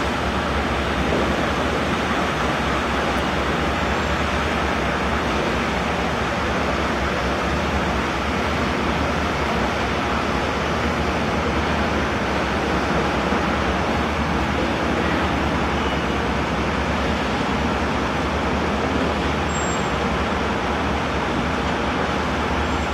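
Steady engine rumble and rushing noise of high-speed catamaran ferries in the harbour, with a low hum and no breaks.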